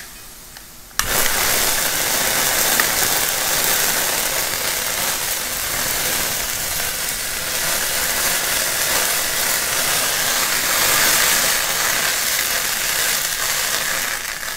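Whiskey flambéing in a cast iron skillet. The alcohol catches about a second in with a sudden whoosh, then the flames burn with a loud, steady rushing noise until it drops away at the very end.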